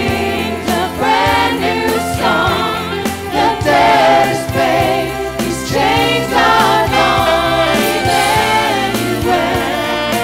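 Contemporary worship band playing live: several singers sing together over violin, electric guitar, keyboard and drums, with regular drum hits keeping the beat.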